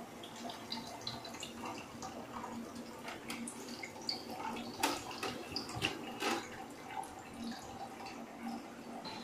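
Water dripping and trickling inside a running RO water purifier, over a faint steady hum, with a few sharper clicks about halfway through.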